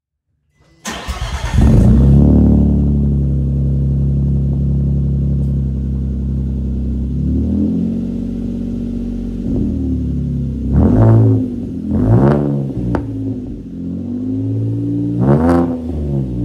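2020 Nissan Frontier Pro-4X's 3.8-litre V6, heard at the tip of its Z1 Off-Road aftermarket exhaust. It starts, flares to a fast idle and settles into a steady idle. In the second half it is blipped several times in quick revs.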